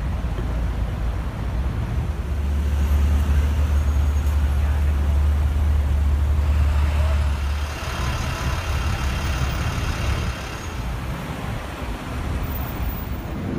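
City street traffic: car and truck engines running and passing, with a heavy low rumble from about two seconds in to past the middle.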